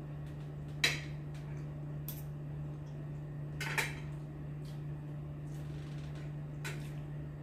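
Spoon and fork clinking against a plate while eating, a few separate clinks, the loudest about a second in and another near four seconds. A steady low hum runs underneath.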